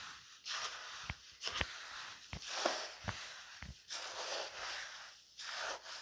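Hand tool stirring a tote of damp crushed charcoal mixed with worm castings: gritty scraping swishes about once a second, with a few sharp clicks. The charcoal is being soaked to activate it into biochar.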